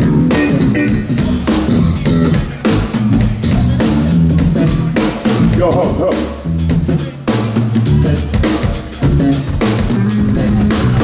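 Funk band playing a groove through the PA during a sound check, with a steady drum-kit beat and a moving bass line.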